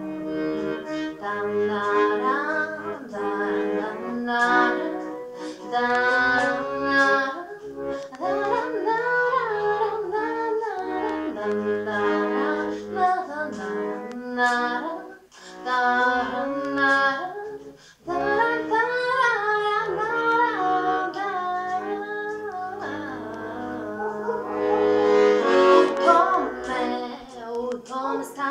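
Red Royal Standard piano accordion playing an instrumental melody over chords and bass, with a short break about halfway through. It grows fuller and brighter near the end.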